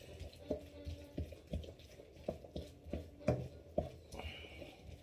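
Wooden spoon stirring a thick flour-and-stock mixture in a stainless steel pan. It knocks irregularly against the pan, two or three times a second, and some knocks ring briefly.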